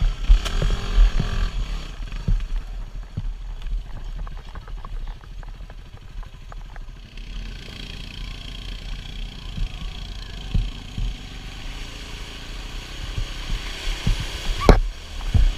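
Yamaha WR250R single-cylinder four-stroke engine running at a steady trail pace, with knocks and rattles from the bike going over rough dirt road. A sharp loud knock near the end as the bike hits a deep puddle.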